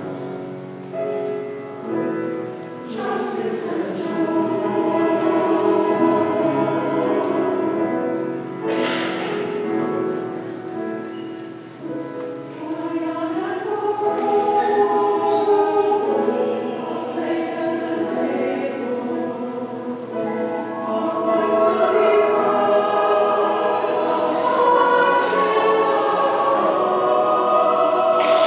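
Church choir of men and women singing together in long, held chords that shift slowly from note to note.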